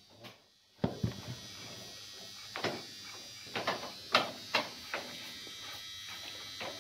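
Scattered metal clinks and taps as a bolt is worked loose by hand from the flange of a ZIL truck's wheel hub and brake drum, over a steady high-pitched hum.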